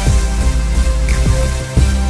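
Background music with a steady beat over held low bass notes.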